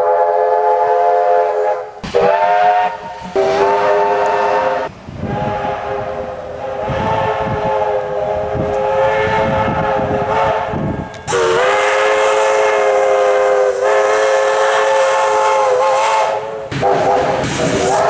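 Victorian Railways steam locomotive chime whistle sounding a string of long blasts, several notes at once, with abrupt breaks between blasts. Under the longest middle blast comes the chuff of the locomotive's exhaust and rail noise.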